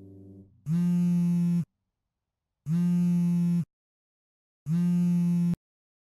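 An electric buzzer sounds three times, each buzz a steady, harsh tone lasting about a second, two seconds apart.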